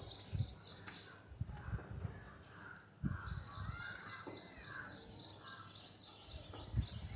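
Birds calling: a fast high chirp repeated about four times a second, which stops about half a second in and starts again about three seconds in, with scattered lower calls and a few soft low thumps.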